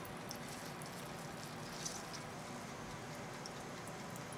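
Faint wringing of a cloth pouch of salted cucumber, with a few soft drips of squeezed-out water falling into a glass bowl.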